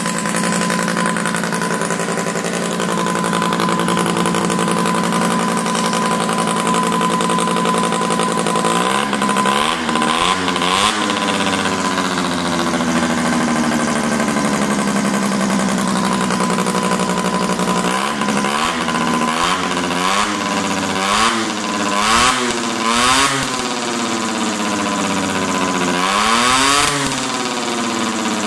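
Small rotary engine driving a ducted fan on a test stand, running at a steady speed for about eight seconds. Then it is revved up and down in quick blips several times, with a long slow drop in speed in between.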